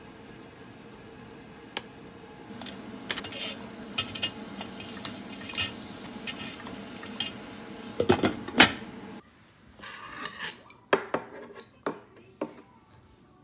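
Frozen dumplings being set into a stainless-steel steamer basket in a pot: a series of sharp metal clinks and clatters, loudest about eight seconds in. After that come a few fainter taps.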